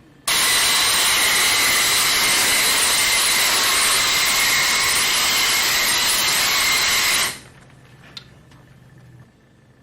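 Compressed-air EXAIR Vac-u-Gun running in blow mode: a loud, steady rush of air with a faint high whistle, turned on sharply just after the start and shut off about seven seconds in.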